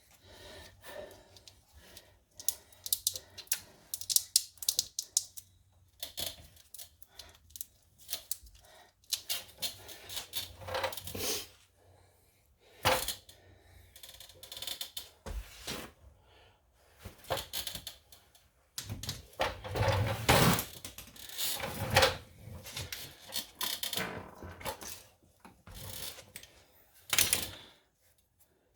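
Irregular metallic clicks, clinks and scrapes of hand tools and parts being handled during work on a front wheel hub assembly.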